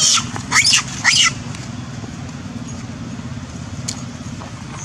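Young female macaque screaming in distress after being bitten: three short, shrill cries in the first second and a half, then quiet. A low steady hum runs underneath throughout.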